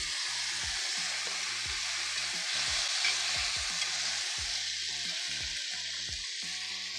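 Sliced onions sizzling in a cast iron frying pan with a splash of soy sauce and wine vinegar, being stirred; the sizzle swells about three seconds in.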